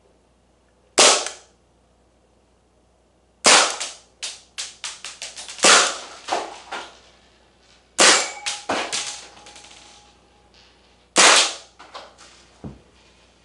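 Maruzen Walther PPK gas blowback airsoft pistol firing five sharp shots a few seconds apart. Most shots are followed by a quick run of lighter clicks and rattles.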